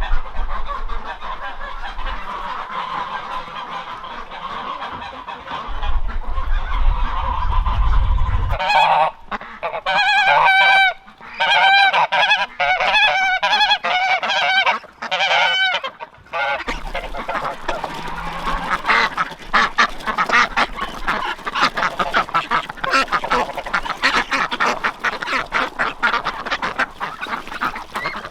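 A flock of domestic geese honking. A busy chorus of calls comes first, over a low rumble. From about nine seconds in there is a run of loud, clear honks close by, and after about seventeen seconds many birds call over one another in a dense clamour, likely with ducks among them.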